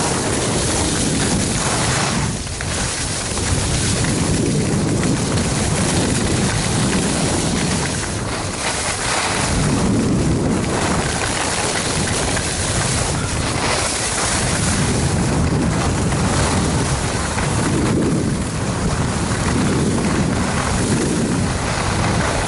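Loud wind noise buffeting the microphone of a skier going downhill, mixed with the hiss of skis on packed snow. It swells and eases every couple of seconds.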